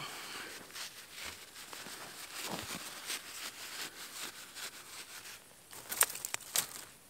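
Paper being torn and crumpled by hand for fire tinder, a dry crinkling rustle. About six seconds in come a few sharp cracks, the loudest sounds, as it is pushed in among dry twigs.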